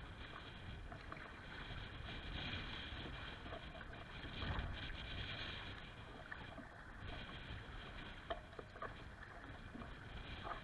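Choppy lake water lapping and splashing against a kayak hull, with wind rumbling on the microphone; the rumble swells about halfway through, and a few small splashes come near the end.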